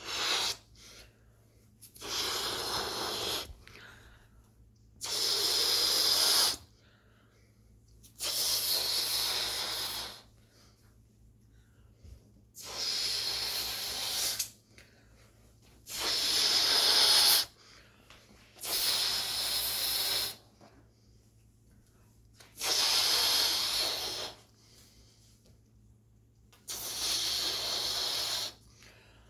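A person blowing breath into a latex balloon to inflate it: about eight long blows, each a second or two of breathy rushing air, with short pauses between them for breath. No pop.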